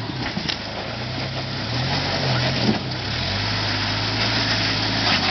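Jeep Wrangler engine running at low revs while the Jeep crawls over rocks. The revs rise briefly about two seconds in, then settle to a steady low drone.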